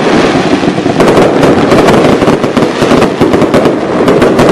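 Fireworks going off in a dense, continuous barrage of rapid bangs and crackles, many per second without a break.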